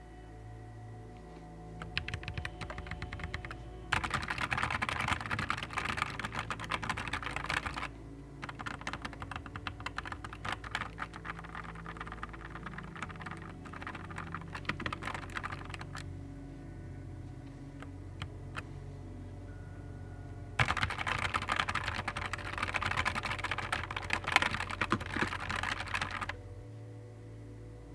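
Fast typing on a Nuphy Air 75 V2 low-profile mechanical keyboard: dense runs of key clicks in bursts, heaviest from about four to eight seconds in and again from about twenty-one to twenty-six seconds, lighter and sparser in between. Soft background music plays underneath.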